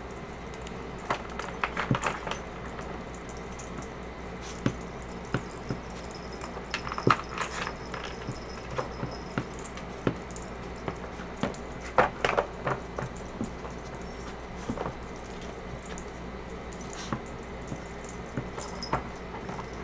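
Hard plastic dog puzzle toy clicking and clattering as a puppy noses and tugs at its sliding pieces: irregular sharp clicks and knocks, with louder clusters about two, seven and twelve seconds in.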